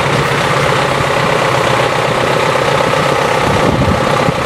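A vehicle engine running steadily close by, a constant hum over street traffic noise.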